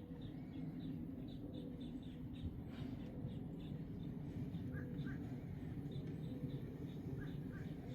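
Small birds chirping: a string of short, high chirps about three a second, with a lower pair of chirps twice, over a steady low rumble.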